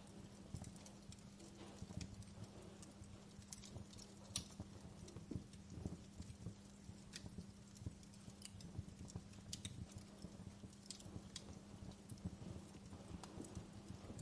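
Wood fire crackling in a fireplace: irregular sharp pops and snaps over a soft low rumble, with a faint steady hum underneath.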